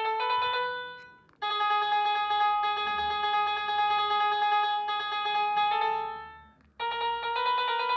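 Smartphone piano-app notes playing through the phone's small speaker as a budgerigar pecks the on-screen keys. The sustained notes flutter quickly and change pitch a few times, and twice a note fades out before the next one starts.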